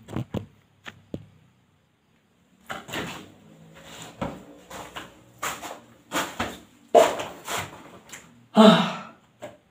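A few knocks of the camera being handled and set down, then footsteps scuffing across a gritty floor, about two steps a second, with a louder short noise near the end.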